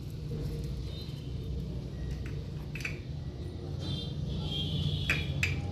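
Faint, steady low background hum with a few soft clicks and light taps, and a brief faint high-pitched sound about four seconds in.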